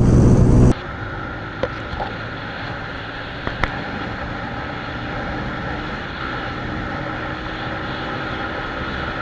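A small single-cylinder commuter motorcycle running steadily at speed during a race, its engine mixed with wind and road rush. A louder burst of wind and engine noise cuts off abruptly under a second in.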